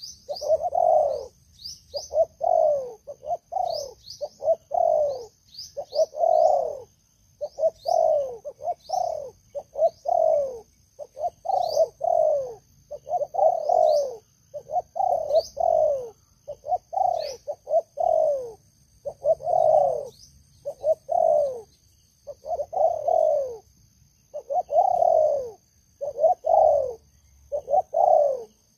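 Spotted doves cooing, loud and close, in repeated runs of two to four coos with short pauses between runs. Faint, quick, high chirps sound above the cooing.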